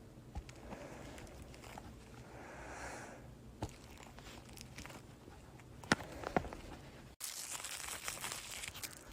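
Quiet handling sounds in a small room: soft rustling with a few light clicks, then, about seven seconds in, an abrupt change to louder crinkling.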